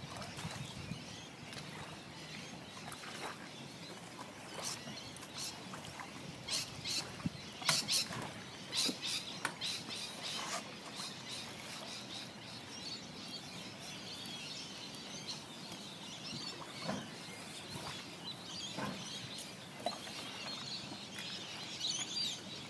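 Birds chirping on and off, with short sharp chirps and clicks over a steady outdoor background, busiest in the first half.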